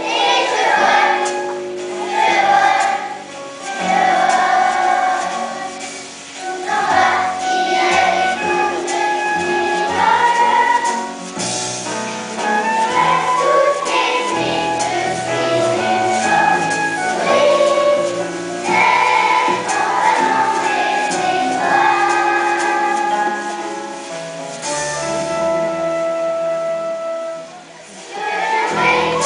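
A children's choir singing a song together, with instrumental accompaniment, in phrases separated by short breaths.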